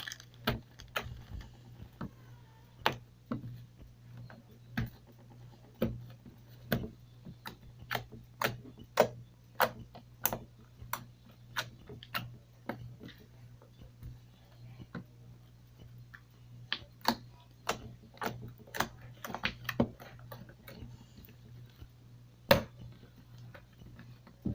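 Homemade slime squished and worked by hand, giving irregular sharp clicks and pops, about one or two a second, over a steady low hum.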